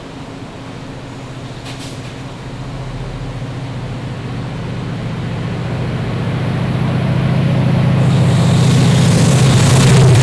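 Diesel locomotive engine with a low, rapidly pulsing note, growing steadily louder as the train approaches. A rushing noise joins in over the last couple of seconds as it draws near.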